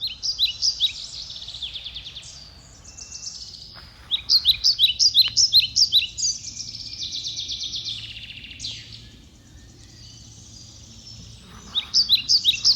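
Songbirds chirping in quick runs of short, high notes, in several bouts with a quieter stretch between.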